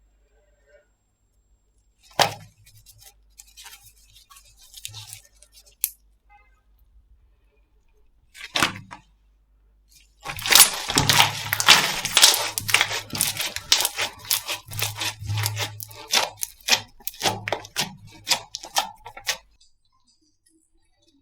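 Slime being pressed and stretched by hand, giving a few scattered pops and crackles, then about nine seconds of dense crackling and popping clicks that stop suddenly near the end.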